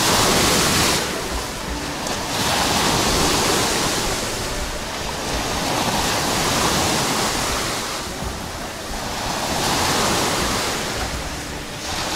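Sea surf breaking on a pebble beach, the wash swelling and falling back in slow surges about every three seconds.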